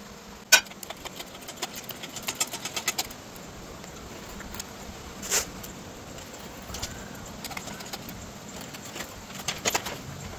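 Metallic clanks and clinks from a hydraulic shop engine crane being worked with an outboard powerhead hanging from its chain: one loud clank about half a second in, a quick run of clinks over the next two seconds, another sharp clank in the middle and a few more near the end.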